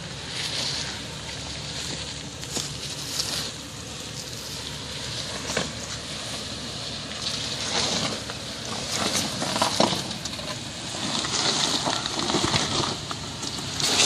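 Tyres of a 2014 Toyota 4Runner crunching over loose rocks and dirt as it crawls along a rocky trail, with scattered cracks and pops of stones under the wheels that grow louder and busier in the second half.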